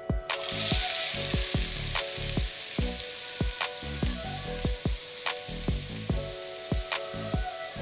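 Chopped onions dropped into hot cooking oil in a frying pan, starting a loud sizzle about a third of a second in that carries on steadily. Background music with a steady beat plays underneath.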